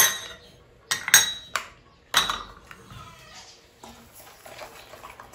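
Kitchen utensils clinking against a mixing bowl as yeast is added to the bread mixture: a few sharp, ringing clinks in the first two seconds or so, then quieter handling.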